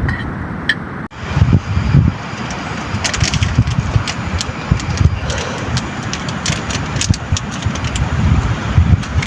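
Rain hissing with wind rumbling on the microphone, plus scattered sharp ticks from about three seconds in; the sound drops out briefly about a second in.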